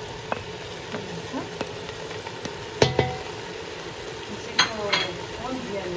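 Meat frying in oil in a stainless-steel pressure cooker, sizzling steadily while chopped onion is added, with a wooden spoon scraping and knocking against the pot. There is a sharp knock about three seconds in and a short run of scrapes near the end.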